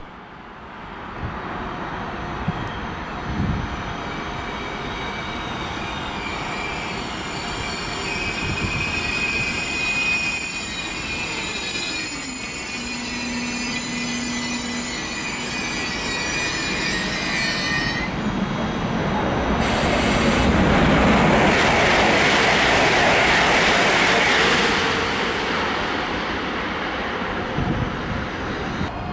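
ICE 3 high-speed electric train pulling into the station and slowing. A high whine and a motor tone fall in pitch and then hold, followed by a louder rush of wheel and brake noise as the train draws alongside, easing near the end.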